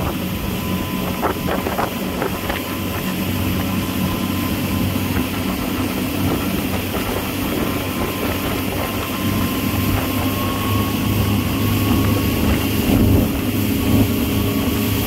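Motorboat engine running steadily at towing speed, with water rushing in the churning wake behind the stern.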